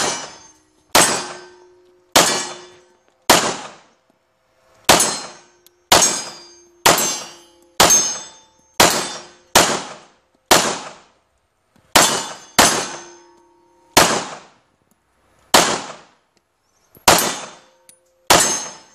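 Semi-automatic pistol fired as a slow, steady string of about seventeen single shots, roughly one a second with uneven gaps. Each crack trails off in a short echo.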